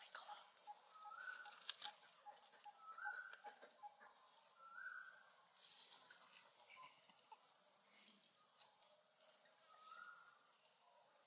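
Faint outdoor bird calls: a short rising call repeated every second or two, with scattered high chirps and small clicks.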